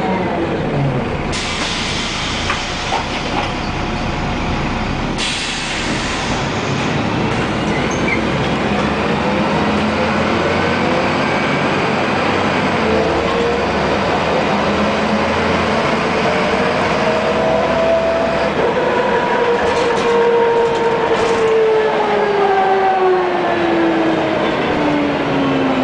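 Iveco EuroRider city bus under way, heard from inside: steady engine and road noise with a whine that glides with road speed. It falls in the first second, rises through the middle, then falls steadily over the last several seconds as the bus slows on its retarder.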